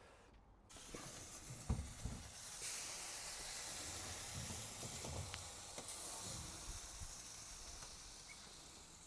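Hot beef casserole with a toasted garlic-butter bread topping sizzling with a steady hiss, fresh from the oven. A few dull knocks come just before the hiss rises, about two seconds in.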